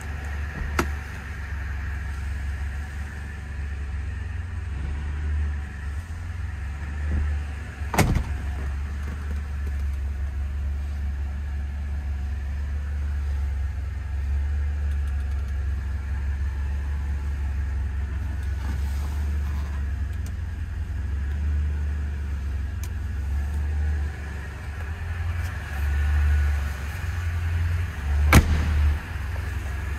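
Fiat Coupe 16V engine idling with a steady low hum. A few sharp knocks break through it, the loudest near the end as the car door is shut.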